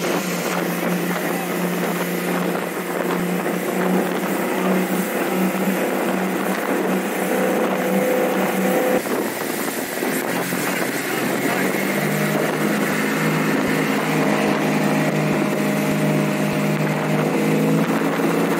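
A 1986 Ski Supreme ski boat's 351 Windsor Ford small-block V8 inboard running under way, with wind and water noise. The engine note drops about halfway through and climbs again a few seconds later.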